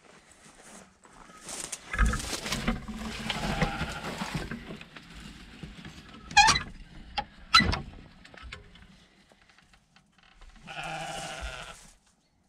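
Old wooden door being pulled open by hand: the hinges creak and the boards scrape and knock in several bursts, with a last drawn-out creak near the end.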